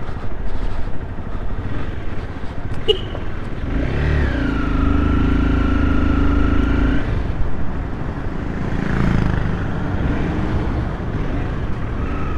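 Motorcycle riding through traffic: a continuous engine and road rumble. A steady pitched tone is held for about three seconds around four seconds in.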